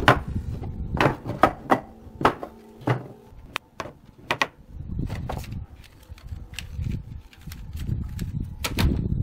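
Wooden mould boards knocked and set down on a wooden tabletop: a quick string of sharp knocks in the first three seconds, a few more about four and a half seconds in, then low handling and rubbing, with two more sharp knocks near the end as the thin sheet-metal dividers are handled.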